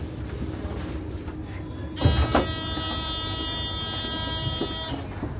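Tram running with a steady low rumble. About two seconds in, a steady, buzzing warning tone with many overtones sounds for about three seconds and then cuts off suddenly, with a couple of knocks as it begins.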